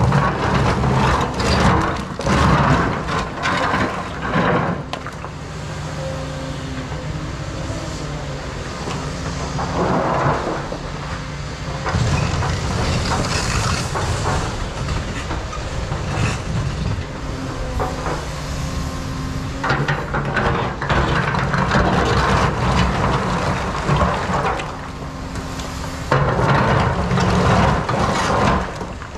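Cat 335 NG excavator working rock, its diesel engine running steadily under load, with several loud stretches of rough grinding and clattering as the bucket works the stone.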